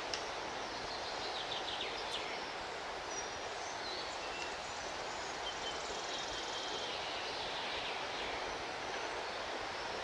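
Steady wash of surf with scattered high bird chirps and short whistles, and a couple of faint sharp clicks.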